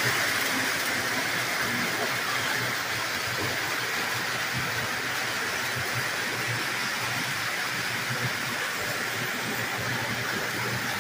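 Lionel O-gauge toy trains running on three-rail track: a steady whir and rumble of wheels and motors.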